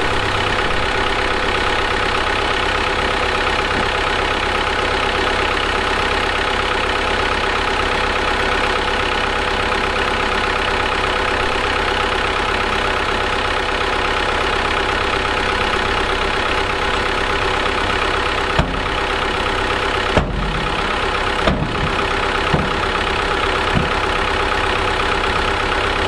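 Diesel engine of heavy earthmoving machinery running steadily at an even speed. A few sharp knocks or clunks are heard in the last third.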